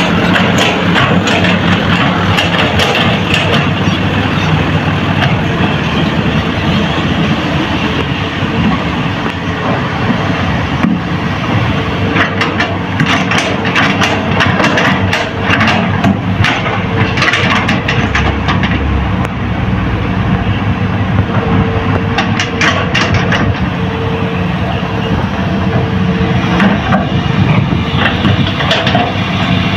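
Hitachi hydraulic excavators working, their diesel engines running steadily under load while earth is dug and loaded into a dump truck. Bursts of rattling and clatter come around the middle and again about two-thirds through, and a thin steady whine comes and goes in the second half.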